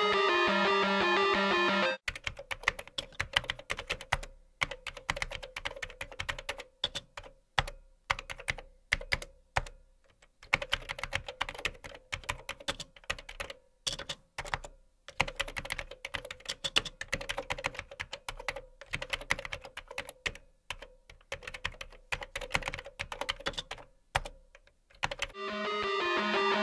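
Fast typing on a computer keyboard: dense, irregular key clicks in runs broken by short pauses, over a faint steady hum. Guitar-led music plays for the first two seconds and comes back near the end.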